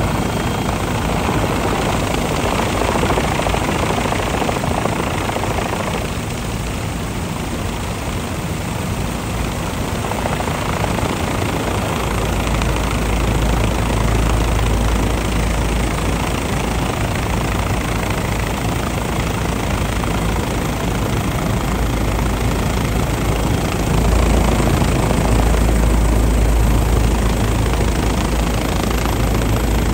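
MD Helicopters MD 530F hovering: the steady sound of its turboshaft engine and five-blade main rotor, with a deeper rumble growing stronger from about twelve seconds in.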